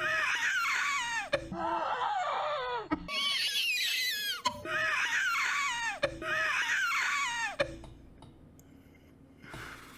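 Lynx giving about five high, wavering wails in a row, each falling in pitch and lasting about a second and a half, a cry that sounds like a spoiled kid. The calls stop about three quarters of the way through.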